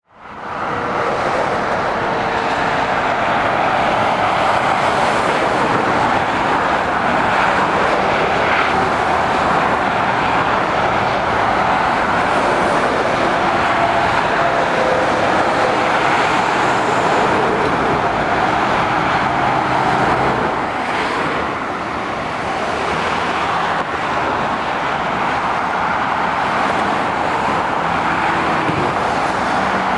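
Steady traffic on a dual carriageway: lorries, vans and cars driving past, a continuous rush of tyre and engine noise that fades in at the start.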